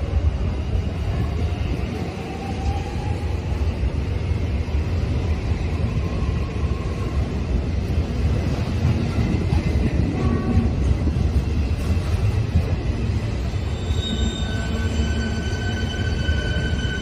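Container freight train wagons rolling past close by: a steady rumble of steel wheels on the rails. A high, steady wheel squeal sets in about three seconds before the end.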